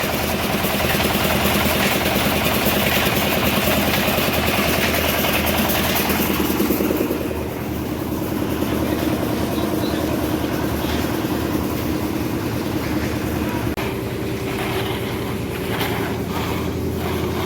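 An engine running steadily, with a hissing layer on top that fades about seven seconds in.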